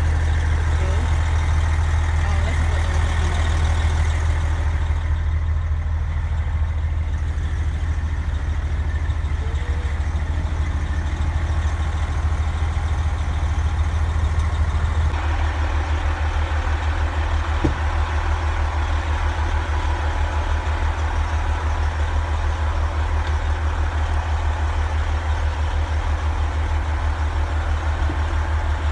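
Heavy military truck diesel engine idling with a steady low rumble; the tone of the sound shifts a little about halfway through.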